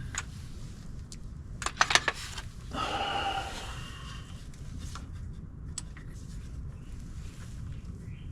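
A quick cluster of sharp metallic clinks from hand tools and parts knocking against metal, about two seconds in, followed by a second or so of scraping rub and a few faint ticks, over a steady low hum.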